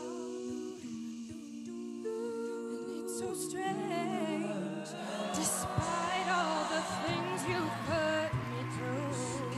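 A cappella vocal group singing in harmony: backing voices hold sustained chords under a lead voice with vibrato. About three seconds in, the singing grows fuller and busier, with more moving voices.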